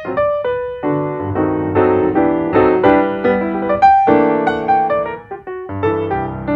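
Instrumental piano music: chords and a melody line struck about twice a second, each fading before the next.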